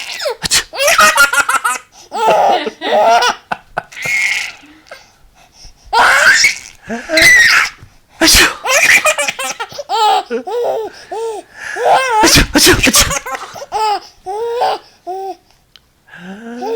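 Several sneezes, each set off by a child's hard belly laughter: long bouts of high-pitched, quickly repeated laugh pulses.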